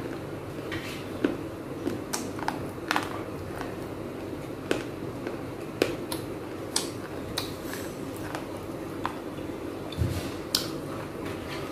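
Pieces of baked clay pot being chewed, giving crisp, sharp crunches at irregular moments, about one a second.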